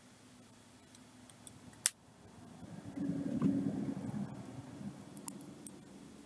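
Small clicks and handling noise from beading materials being worked by hand, the loudest a sharp click about two seconds in, followed by a louder stretch of handling noise lasting a second or two.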